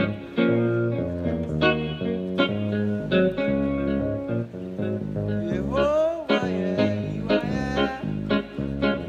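Bass guitar playing a walking bass line in a praise-song groove: plucked notes moving step by step in a steady rhythm, with a note sliding upward about six seconds in.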